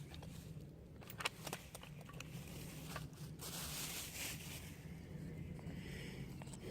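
A few light clicks and knocks, then a rustle lasting about a second, over a steady low hum: handling noises.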